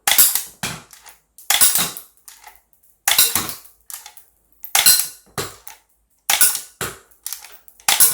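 A G17-style BB pistol being fired semi-automatically: six sharp snaps about one and a half seconds apart, each followed by fainter clicks.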